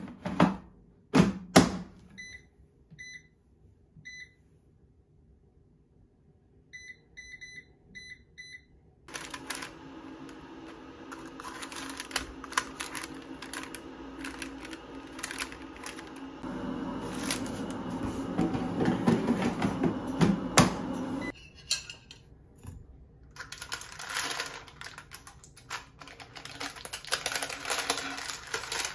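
Plastic clunks of a Cosori air fryer basket being pushed shut, then short beeps from its touch controls as the baking time is set: three spaced beeps, then a quick run of five. About nine seconds in, a steady rushing noise begins, which grows louder for a few seconds; near the end, a paper liner crinkles as it is handled in the basket.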